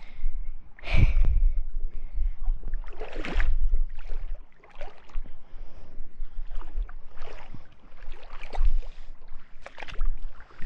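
Creek water splashing and sloshing in irregular bursts, with a low rumble on the microphone.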